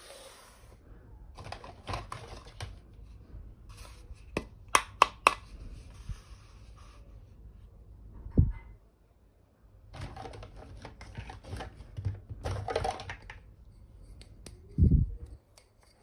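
Small plastic toy kitchen pieces being handled and set down: scattered clicks and rustling, a quick run of sharp taps about five seconds in, and two low thumps, one past eight seconds and one near the end.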